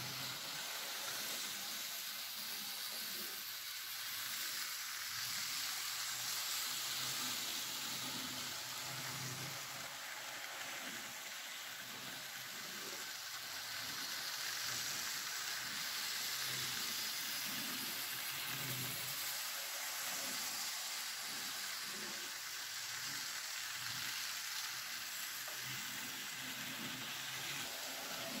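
N scale model trains running on track: a steady, hissing rattle of the small electric motors and the wheels rolling on the rails, with soft irregular low knocks.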